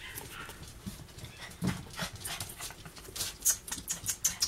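Yorkshire terrier puppies scuffling about their pen: a run of small quick scratches and ticks that come faster over the last second or so.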